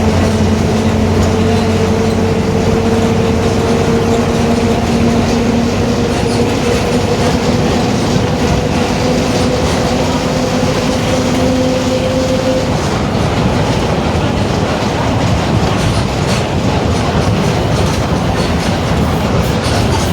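Mercedes-Benz OF-1721 BlueTec 5 city bus under way, its differential giving a steady whine that rises slightly in pitch and stops about 13 seconds in. Running noise and rattle go on throughout.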